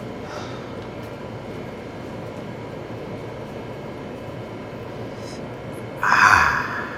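Steady background hum of a convenience store's room tone, then a short, loud noisy burst about six seconds in.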